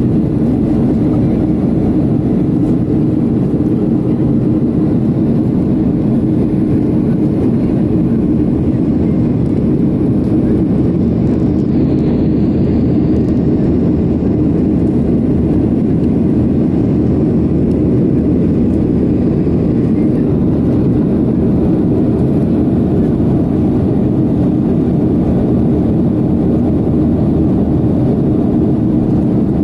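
Steady low rumble of a jet airliner's cabin in flight: engine and airflow noise heard from a window seat, unchanging throughout.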